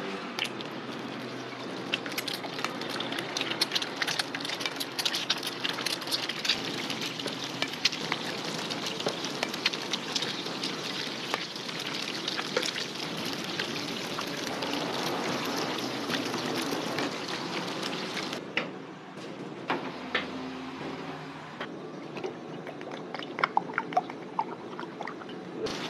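Eggs sizzling and crackling as they deep-fry in a large wok of hot oil, with fresh eggs being cracked in. About two-thirds through the frying noise cuts off suddenly, giving way to a thinner spatter of pops and liquid pouring from a kettle into a pot of oil near the end.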